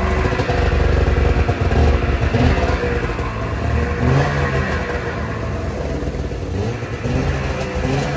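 Ski-Doo Formula 500 snowmobile's two-stroke engine running, its revs rising and falling a few times, as it is run up after a voltage regulator replacement.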